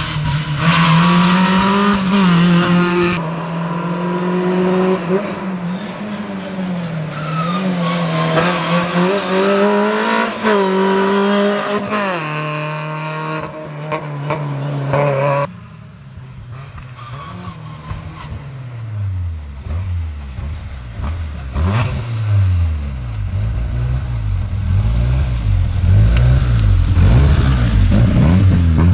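Small hatchback slalom race car's engine revving hard, its pitch rising and falling over and over as it accelerates and brakes between the cones. About halfway through, the sound cuts abruptly to a lower engine note, which swings up and down and gets louder toward the end.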